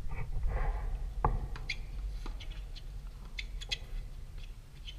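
Tennis rally on a hard court: a sharp pop of racket on ball a little over a second in, followed by several lighter ticks from the ball and the players' feet, over a steady low rumble.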